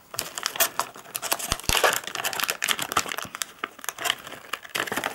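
Plastic packaging of soft fishing lures crinkling and crackling irregularly as it is handled and opened.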